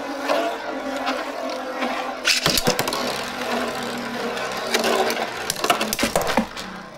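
Steel Beyblade spinning tops whirring steadily on a plastic stadium floor. About two seconds in, a burst of sharp metal clacks as the tops collide, and a second run of hard clashes near the end as one is knocked out.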